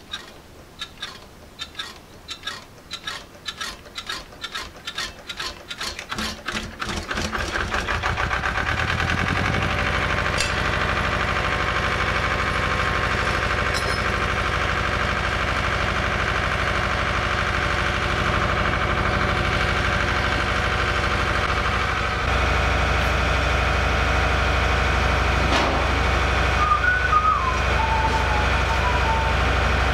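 A stationary engine being turned over by hand, its beats coming faster and faster for about seven seconds until it fires and settles into steady running. About two-thirds of the way through its low note steps up louder and stays there.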